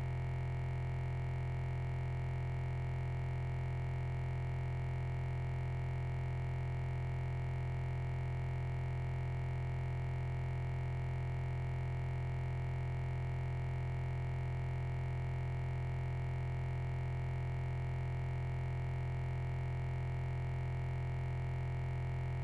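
A steady low electronic buzz, completely unchanging, with no other sound on top of it.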